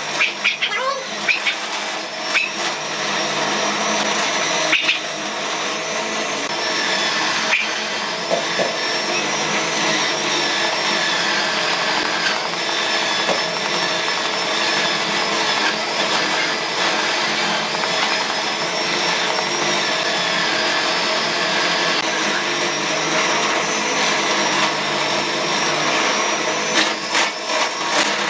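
Angle grinder motor driving a homemade wood lathe, running steadily with a high whine.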